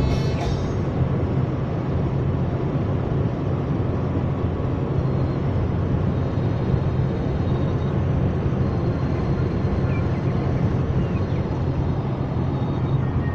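Steady low drone inside the cabin of a 1995 Chrysler LHS at highway cruising speed: tyre and road noise with wind and the hum of its 3.5-litre V6.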